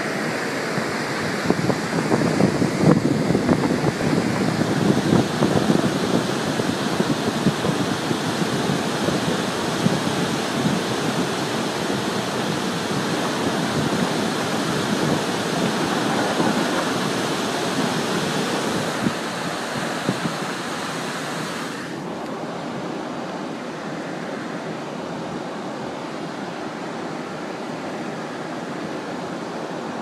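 Steady rushing roar of a mud and debris flow pouring across a wet highway, loudest in the first several seconds and easing off later, with a sudden drop in its hiss at about 22 seconds.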